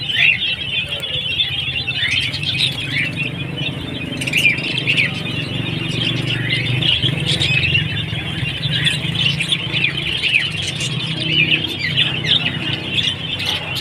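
Many small caged birds chirping and twittering at once, a dense overlapping chatter, over a steady low hum.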